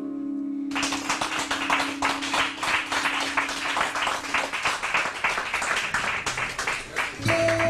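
Hands clapping in applause, starting about a second in, over a held low note from the end of a song that fades out midway. Music starts again near the end.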